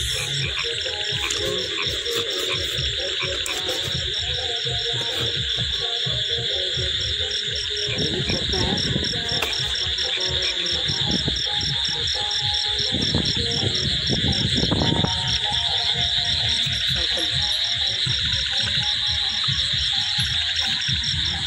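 Night chorus of crickets and other insects: a steady high trill with a fast, even pulsing chirp above it, and frogs croaking in the mix. Low rustling and handling noises come up about 8 seconds in and again around 13 to 15 seconds.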